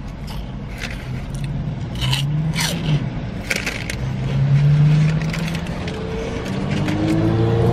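Paper food wrapper rustling and crinkling in the hands while eating, in a string of short crackles. Between them a low closed-mouth hum is heard twice, the second one longer.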